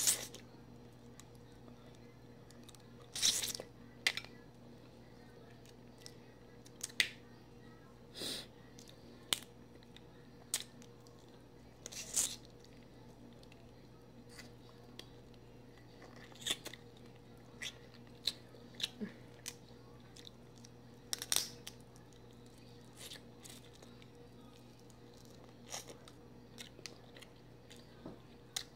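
Dungeness crab legs being picked apart and eaten by hand: scattered short cracks and crunches of shell and chewing, at irregular intervals, over a faint steady hum.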